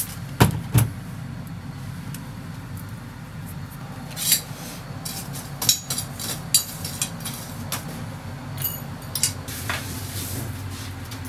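Kitchen clatter of metal skewers and utensils: two solid knocks just after the start, then scattered clicks and clinks as skewered fish is handled over a charcoal grill, over a steady low hum.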